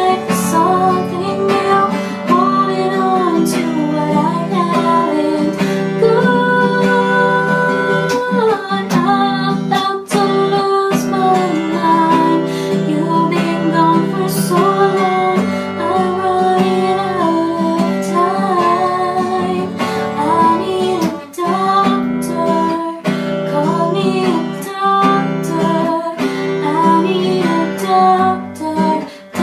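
Acoustic guitar strummed through a four-chord progression, with a woman singing a melody over it.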